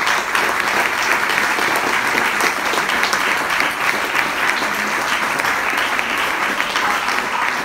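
Audience applauding: many hands clapping in a dense, steady wash that holds throughout.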